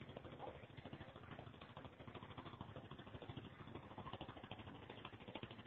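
Excavator's diesel engine running, faint and thin, with a fast steady clattering rattle.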